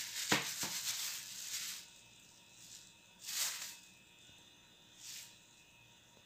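Plastic food-handling glove crinkling and wet marinade squishing as a hand kneads spiced chicken breasts in a glass bowl, with a few sharp clicks. This stops about two seconds in, followed by two short hissing rustles.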